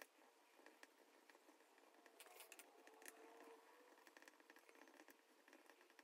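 Near silence with the faint scratching of a black crayon outlining a drawing on paper.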